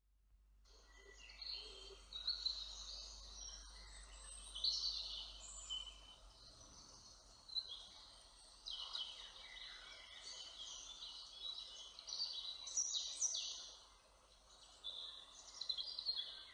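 Several songbirds singing in short, repeated chirping phrases, faint over a soft steady background noise.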